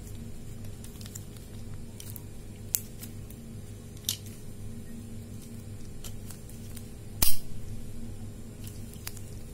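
A few sharp clicks and knocks from a small handheld pipe cutter for plastic, aluminium and copper pipe as it is handled, its parts tapping together. The loudest click comes about seven seconds in, over a steady low hum.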